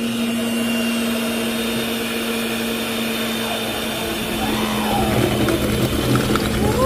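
Mondial electric stand mixer's motor running with a steady hum, spinning a perforated beer can of melted sugar as a homemade cotton-candy spinner. The low rumble grows a little louder after a few seconds. The mixer is a 220 V machine run on 110 V, which the owner says keeps it from its full strength.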